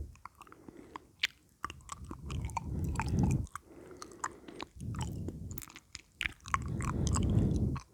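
A man's mouth sounds right at the microphone: a rapid run of wet clicks, smacks and pops, with three low, breathy swells about a second long each.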